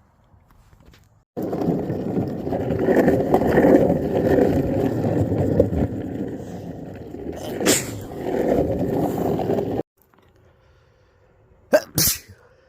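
Skateboard wheels rolling over pavement: a steady, loud rumbling that starts suddenly and cuts off suddenly, followed near the end by two brief sharp sounds.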